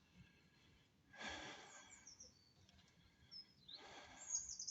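Faint outdoor ambience: birds chirping, with a few high calls that slide downward, most clearly near the end. There are also two short breathy rushes of noise, about a second in and shortly before the end.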